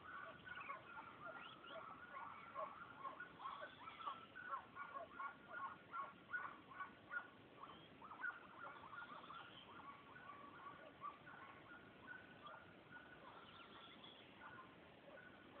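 A pack of hunting hounds baying faintly, many overlapping calls, with a busier run of quick yelps a few seconds in.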